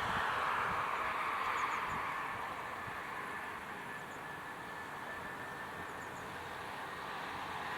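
Airbus A320-214's CFM56 jet engines, a steady rushing noise with a faint whine, easing off through the middle and swelling again near the end.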